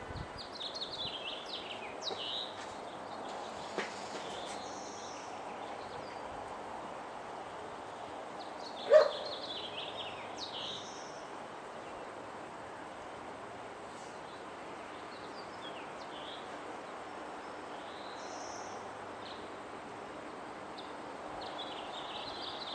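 Songbirds singing in short bursts of high, falling chirps, three times, over steady outdoor background noise. A single short, loud call-like sound about nine seconds in is the loudest thing.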